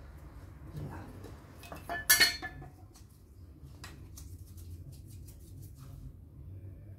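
A single metallic clink with a brief ringing about two seconds in, followed by a few faint clicks and taps of small objects being handled on a workbench, over a low steady hum.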